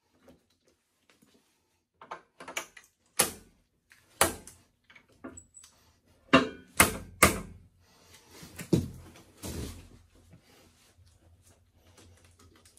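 Sharp metallic clacks and knocks as hose fittings and metal parts of a hydraulic pipe bursting machine are handled and fitted, a handful of loud ones about two to seven seconds in, followed by a softer scraping rustle.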